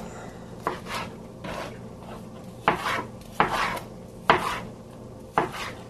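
Chef's knife chopping tomato into chunks on a cutting board: about six separate knife strokes hitting the board, unevenly spaced.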